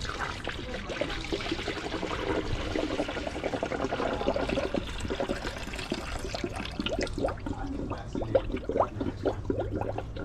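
Liquid pouring and splashing steadily, with irregular gurgles and spatters.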